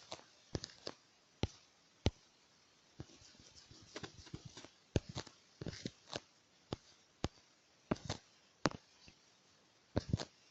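Irregular sharp clicks and taps, about fifteen, spaced unevenly, with a short stretch of faint rustling partway through: small handling noise.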